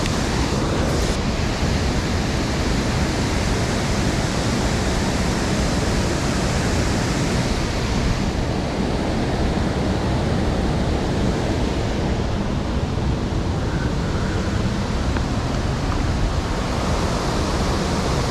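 Steady rushing of a waterfall and fast high water, an even roar with no break. Wind buffets the microphone at times.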